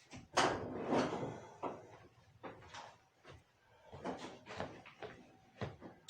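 A string of irregular knocks and clatters from the metal cabinet and panels of a Samsung clothes dryer as it is handled and tilted backward during disassembly, loudest in the first second.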